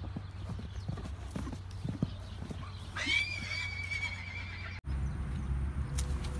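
Appaloosa horse's hooves pounding on dry dirt as it gallops, followed by a whinny that rises quickly and holds for about two seconds. The sound then cuts off abruptly, and a steady background noise follows.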